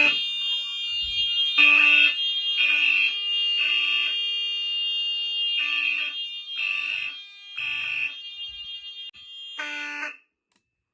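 Fire alarm notification appliances sounding after a manual pull station is pulled. Pulsing horns sound in a temporal-3 code pattern, three blasts, a pause, then three more, over a steady high-pitched tone. All of it cuts off suddenly about ten seconds in.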